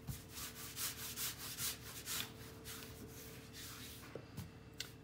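Hands rolling baguette dough back and forth on a marble bench: a soft, swishy rub of palms and fingers brushing the bench, about four strokes a second, weakening after about three seconds. The swish is the sign that the hands are pressing against the bench rather than floating on the dough.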